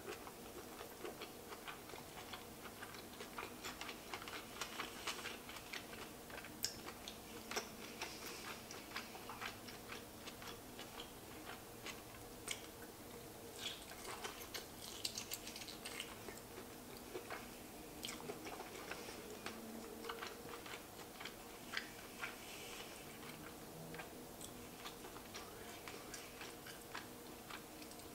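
Quiet eating of lobster: soft chewing with many small, irregular clicks and crackles of shell and meat being picked apart, over a faint steady hum.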